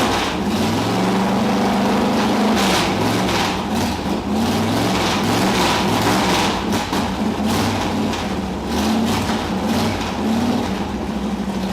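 A 454 big-block V8 in a 1968 Corvette, running loud through side pipes with its revs rising and falling unevenly as the throttle is worked. The engine is cold, has no choke, and needs more fuel to keep running.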